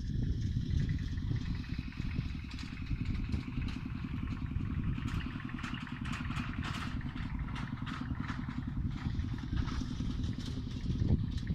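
A small engine running steadily, with scattered clicks and clatter over it.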